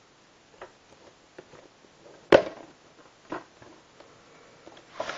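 Plastic DVD case being handled: a few light clicks, then one sharp snap about two seconds in and another click a second later, with more rustling and clicking near the end.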